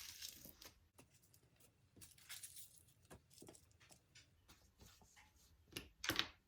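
Tissue paper being crunched and crinkled by hand in short, faint rustles, with a louder crinkle about six seconds in.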